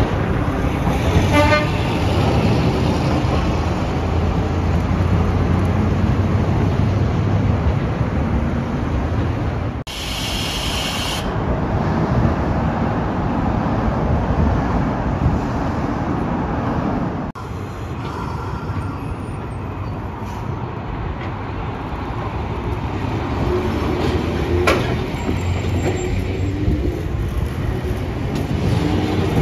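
City street traffic around streetcar tracks: cars and trams passing with a continuous rumble. A brief high-pitched toot sounds about ten seconds in.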